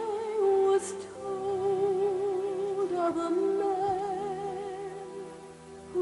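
A slow song sung by a woman, drawing out long held notes with a wide vibrato over soft instrumental accompaniment.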